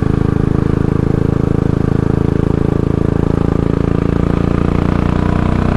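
Royal Enfield Classic 500's single-cylinder four-stroke engine running at a steady speed while the bike is ridden on the road.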